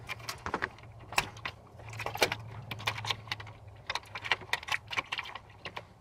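Quick, irregular clicks and light rattles of meter test-lead clamps and wires being handled against an electric heat kit's sheet-metal panel and terminals, as the leads are moved to test the second heating element.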